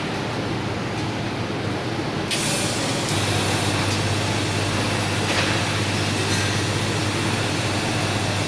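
Electric arc welding: a steady hiss that starts about two seconds in, joined shortly after by a low electrical hum from the arc and welding set.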